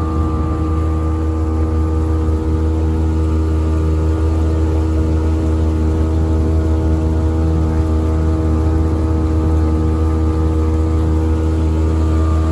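Mercury 3.3 hp two-stroke outboard motor running steadily, driving the jon boat along at an even pitch.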